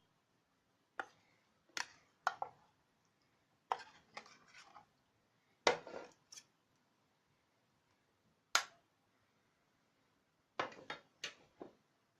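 Light clinks and knocks, irregularly spaced, of chicken pieces being set down on the raised metal wire rack of a roasting tray.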